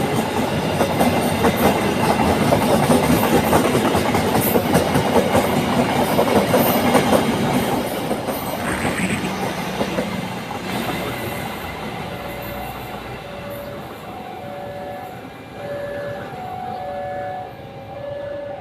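Malabar passenger train passing close by, its wheels clattering loudly over the rails for about ten seconds, then fading as it moves away. From about the middle on, a repeating two-tone electronic beeping can be heard.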